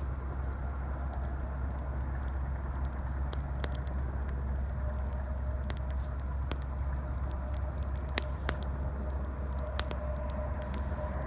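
Campfire crackling, with scattered sharp pops, over a steady low rumble of highway traffic. A few louder pops fall in the second half.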